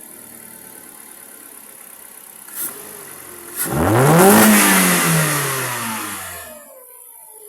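Kia Rio car engine at idle is revved once: the pitch climbs quickly, then falls slowly back to idle over about two and a half seconds. Two sharp clicks come just before the rev.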